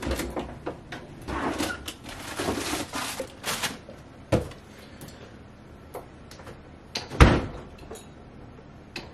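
Someone rummaging in an open refrigerator: rustling and light knocks as packages and containers are handled and taken out, and one sharp thump about seven seconds in.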